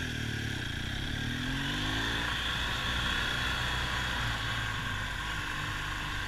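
BMW adventure motorcycle engine pulling along a dirt track. It rises in pitch over the first two seconds or so as it accelerates, then runs steadily under a constant hiss of wind and road noise.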